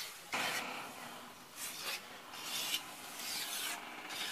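Goat hide being pulled and worked off the hanging carcass by hand: a series of short, rough rubbing strokes, about one a second.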